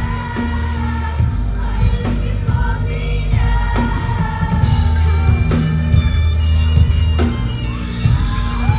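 Live concert music played loud through a venue's sound system: a woman singing into a microphone over heavy bass and a steady drum beat.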